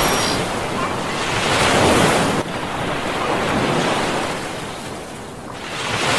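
Sea waves washing with wind buffeting the microphone, rising and falling in swells, with a sudden drop about two and a half seconds in.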